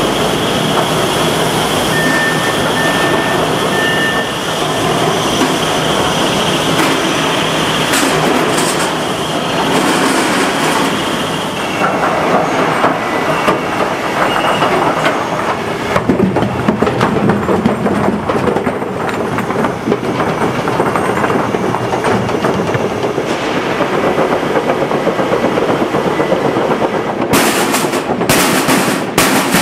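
Factory machinery running loud, with a steady, dense metallic rattle. Near the end, stamped steel parts clatter one after another off a steel chute into a steel mesh crate.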